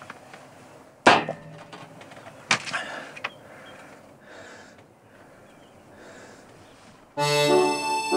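A sharp, loud sound about a second in and another about a second and a half later, then accordion music starts about seven seconds in.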